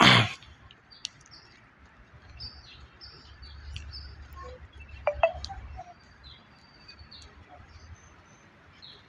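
Birds chirping, with short high chirps scattered throughout. A brief loud burst of noise comes right at the start, and a louder sound with a quick falling pitch about five seconds in.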